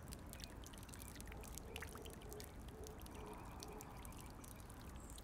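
A man urinating onto the ground among bushes: a faint, steady trickle of liquid.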